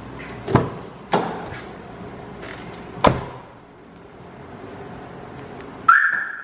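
Three sharp thuds, then near the end a short electronic chirp from an aftermarket car alarm siren, sliding up in pitch and holding for about half a second.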